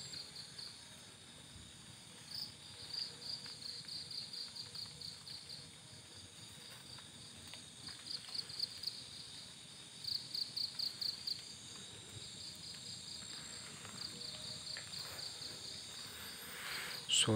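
Night insects chirping, probably crickets: trains of rapid high-pitched pulses that come in short bursts, several pulses at a time, over faint background noise.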